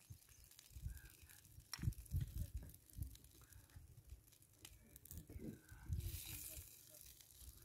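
Wind gusting on the microphone in low rumbles, with a few light clicks and rustles of camping cookware being handled and a brief hiss about six seconds in.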